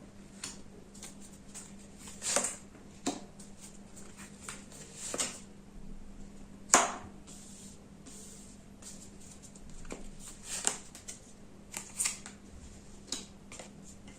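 Tarot cards being handled and laid down on a table: scattered soft taps and slaps at irregular intervals, the loudest about halfway through, over a faint steady hum.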